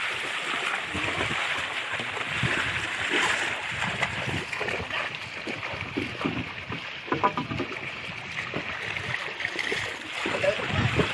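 Shallow seawater splashing and lapping around a small wooden outrigger boat, with irregular knocks and rustles as men handle the net in it.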